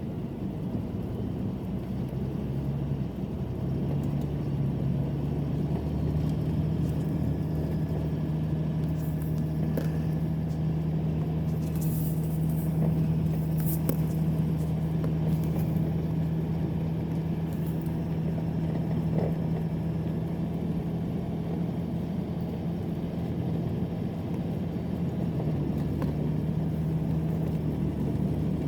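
A vehicle engine running at a steady speed, a constant low drone that picks up slightly a few seconds in and then holds even.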